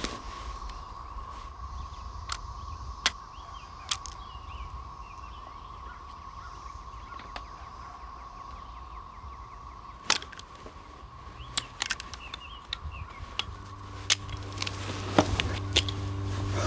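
Outdoor ambience: a low wind rumble, a steady high insect-like drone, faint bird chirps and scattered sharp clicks or snaps. Near the end a low sustained music drone swells in and grows louder.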